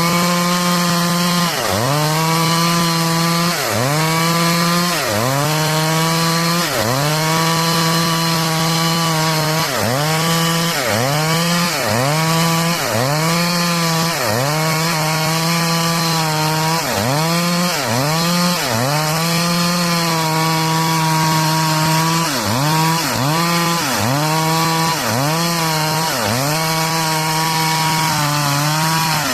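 Stihl MS 382 two-stroke chainsaw running under load while cutting into wood, as when sawing planks from a log. Its engine note dips briefly and recovers roughly once a second as the chain bites.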